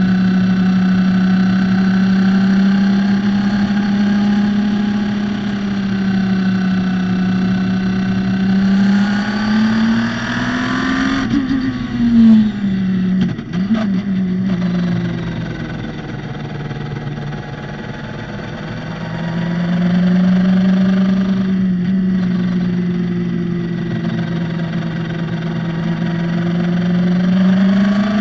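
Radical SR3's engine running hard around a racetrack, its pitch climbing and falling as the car speeds up and slows. About halfway through there are a few quick drops and jumps in pitch.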